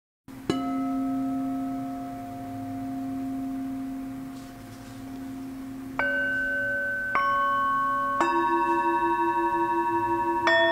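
Metal singing bowls struck with a wooden mallet: one deep bowl rung about half a second in, then four more strikes from about six seconds on. The tones ring on and overlap, one with a slow wavering beat.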